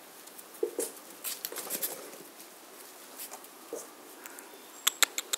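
German shorthaired pointer puppies' claws pattering and scratching on a concrete path, with a few brief squeaks. Near the end a quick, even run of sharp clicks starts, about five a second.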